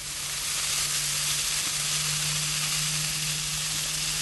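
Ribeye steak sizzling on very hot gas-grill grates. The hiss swells up within the first half second as the meat is laid down, then holds steady.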